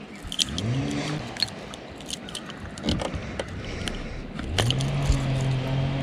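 Electric bow-mounted trolling motor humming up in pitch in short spurts, running steadily near the end. Metallic clicking and jingling of a crankbait's treble hooks and rattles comes as a small bass is handled off the lure.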